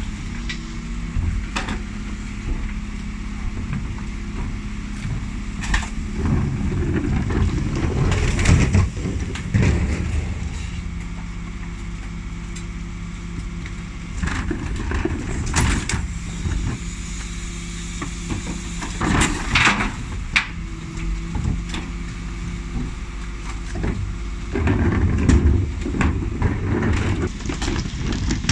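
Dennis Elite 6 refuse truck running with a steady low hum while its Terberg OmniDEL rear lift tips and lowers wheelie bins. Loud clattering and thuds of rubbish and bins on the lift come about a quarter of the way in, sharp knocks follow around the middle, and another noisy burst comes near the end.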